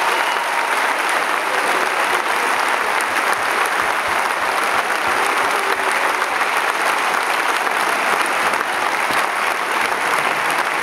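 Crowd applauding steadily: dense, even clapping.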